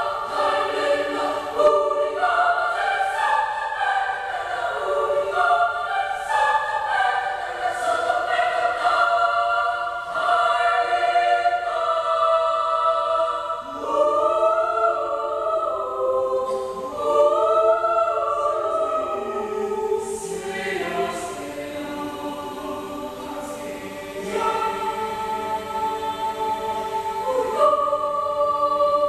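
Children's choir of boys and girls singing in several voice parts, holding and moving through sustained notes.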